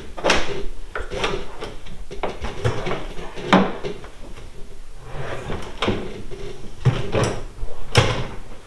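A string of irregular knocks and clunks from gear being handled on a plastic fishing kayak's deck, about nine in all, the loudest a little past three and a half seconds and at about eight seconds.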